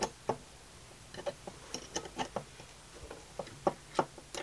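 Small steel spanner clicking and tapping on the clamping bolts of a manual brake pipe flaring tool as the bolts are tightened to clamp a copper brake pipe: a run of short, irregular metallic clicks.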